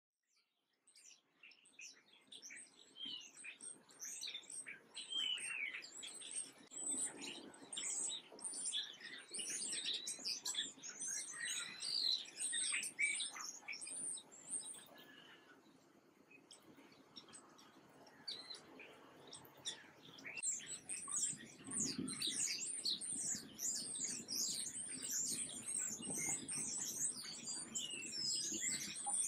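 Small songbirds chirping and calling in a dense chorus of short, high chirps. The chorus thins out for a few seconds around the middle, then picks up again.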